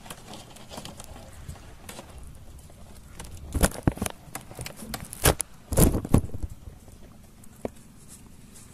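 Sharp knocks and clatters in a small fishing boat as a hook longline and its catch are hauled aboard. They bunch together in the middle, about two seconds of closely spaced hits, and one more knock comes near the end.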